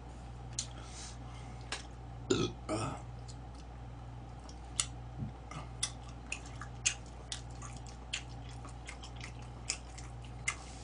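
A man burps twice in quick succession a couple of seconds in, after a swallow of cola. Then he eats chicken, making a string of small, sharp clicks from chewing and chopsticks, roughly one or two a second.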